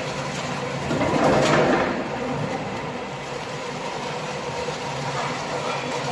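Log debarker running steadily with a low machine hum while a log is fed through it and its bark is stripped off. The noise grows louder and rougher for about a second, starting about a second in.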